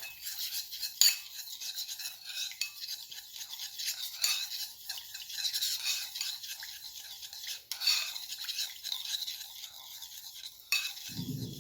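A utensil briskly stirring a thin sauce in a bowl, with fast, uneven scraping and light clinking against the bowl.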